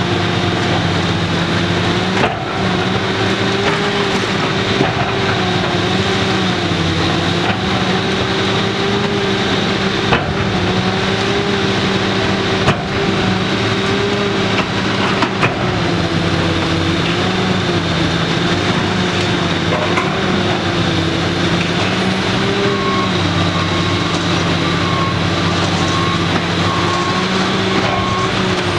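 Demolition excavator's diesel engine running under hydraulic load, its pitch wavering slightly as the shear works at the building's concrete and steel, with a few sharp knocks. Near the end a steady intermittent beeping joins in.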